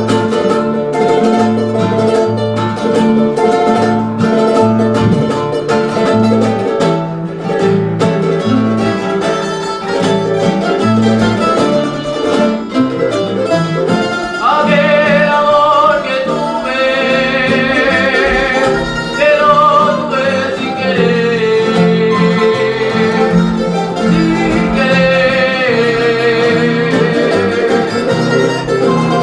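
A Canarian folía played live by a string group of guitars and timple: a strummed instrumental introduction, then a solo singer comes in about halfway through over the strumming.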